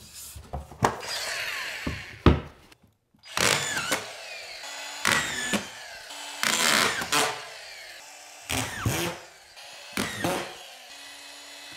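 A strip of drywall scraping and knocking against the wall and stair as it is pushed into place, with several short whirs of a cordless drill/driver in the second half.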